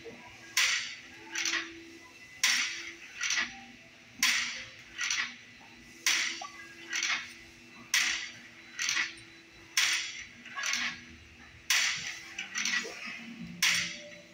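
Reps of cable tricep pushdowns on a weight-stack machine: eight repeats about every two seconds, each a sharp noisy burst followed by a weaker one a moment later.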